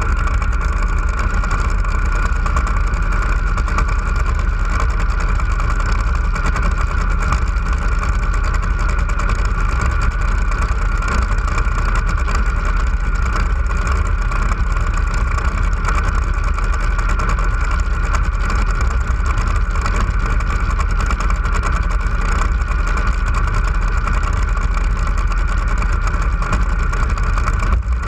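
Top Fuel hydroplane drag boat's supercharged V8 engine idling loudly and steadily at close range, with a deep rumble.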